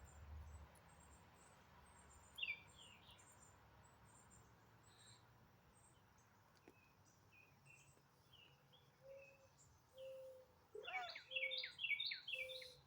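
Wild birds calling: scattered short, downward-slurred chirps, then a quick run of louder chirps near the end, with short low notes in between.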